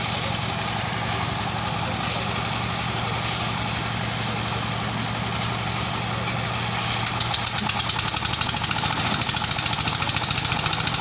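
An engine, most likely construction machinery, running steadily. About seven seconds in it turns into a louder, rapid, even pulsing chug.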